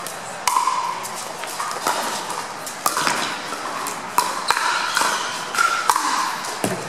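Pickleball rally: hard paddles striking a plastic pickleball in a series of sharp pocks, each with a brief ringing ping. The hits are spaced out at first and come quicker, several a second, in the net exchange near the end.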